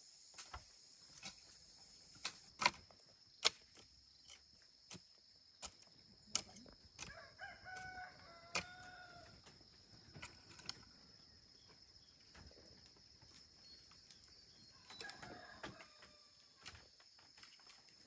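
A rooster crowing twice, a long call partway through and a shorter one later, amid scattered sharp knocks and a steady high hiss.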